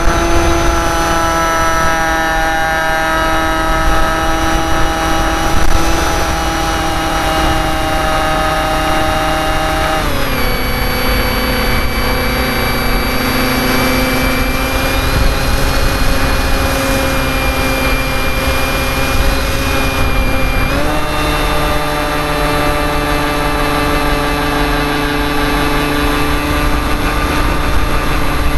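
Brushless electric motor (Tower Pro 2408-21) spinning a 7x6 propeller, heard from a camera on board the RC plane: a steady whine made of several tones. The pitch drops about a third of the way through as the motor slows, and climbs back up about ten seconds later.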